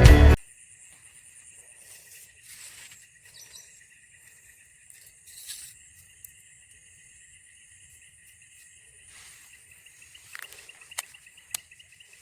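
Intro music cuts off in the first half-second. A faint, steady chorus of insects follows, a high continuous trilling, with a few sharp clicks near the end.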